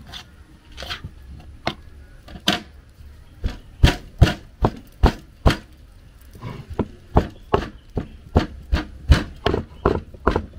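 Rhythmic heavy knocks of food preparation, a few light ones spaced out at first, then from about three and a half seconds in a steady run of strong blows, about two and a half a second.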